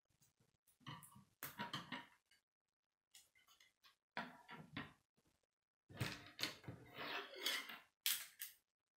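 Plastic K'nex rods and connectors clicking and clattering as pieces are handled and snapped together, in several short bursts with silent gaps, the busiest and loudest from about six seconds in.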